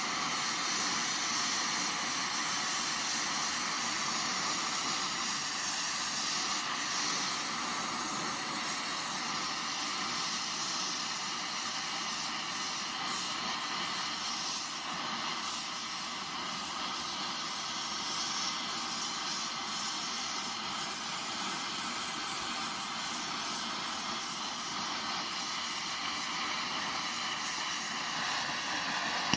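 Blow torch flame burning steadily with a continuous hiss, heating a piece of steel.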